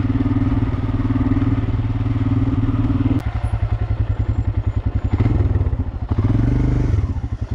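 Royal Enfield Himalayan's single-cylinder engine running steadily while riding. About three seconds in, the revs drop and it turns into a slower, pulsing beat. It picks up briefly twice and eases off again near the end.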